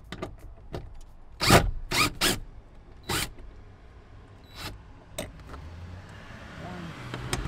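Cordless drill-driver run in several short trigger bursts, the loudest in the first few seconds, backing out 10 mm bolts.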